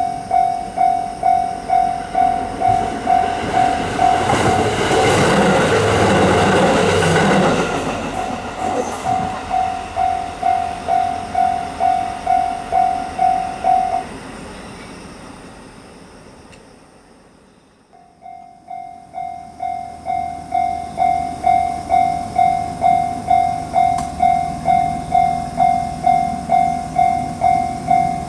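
Japanese railroad crossing warning bell, the electronic 'kan-kan' alarm, ringing about twice a second while a train passes close by about four seconds in. About halfway the bell stops and the sound fades out, then another crossing's bell starts ringing at the same steady pace.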